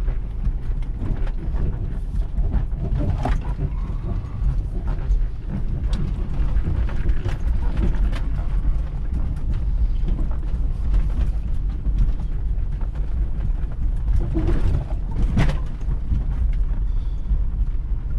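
Toyota 4Runner driving slowly over rough, overgrown ground, heard from inside the cabin: a steady low engine and tyre rumble with frequent knocks and rattles as it rides over bumps.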